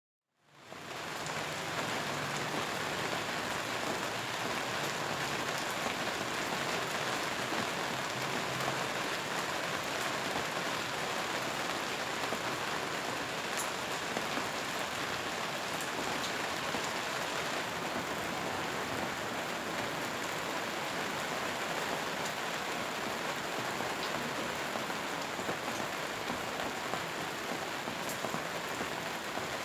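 Steady rain, an even dense hiss with a few single louder drops ticking now and then; it fades in over the first second.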